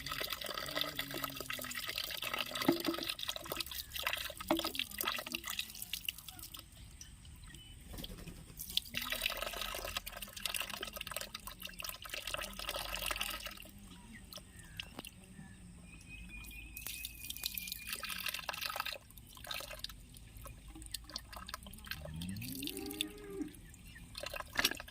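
Water splashing and dripping in spells of a few seconds with quieter pauses between, mixed with small clicks and knocks from handling.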